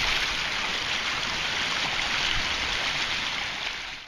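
Water rushing steadily through a narrow concrete channel, fading out near the end.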